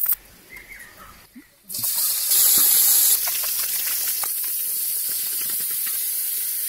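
Pieces of eel going into hot oil in a cooking pot and frying with a steady sizzling hiss. The hiss starts about two seconds in, is loudest for about a second, then settles and holds steady.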